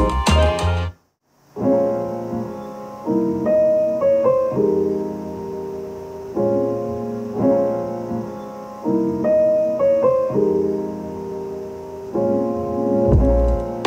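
Music played on a Marshall Middleton portable wireless speaker: one track stops about a second in, and after a short silence a gentle piano piece of repeated chords begins, with deep bass coming in near the end.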